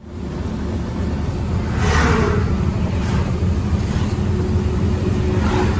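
Truck engine and road noise heard inside the cab while driving, a steady low rumble, with a rushing whoosh swelling up about two seconds in and fainter ones after.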